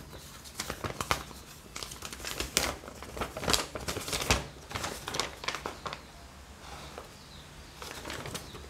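Paper rustling and crinkling as a folded instruction sheet is opened out and handled, with a busy run of crackles for the first four seconds or so, then quieter, sparser rustles.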